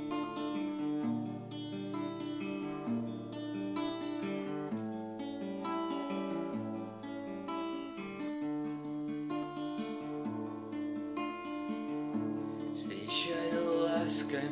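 Acoustic guitar playing chords in an instrumental break of a song, the chords changing every second or two, with a brief hissy burst near the end.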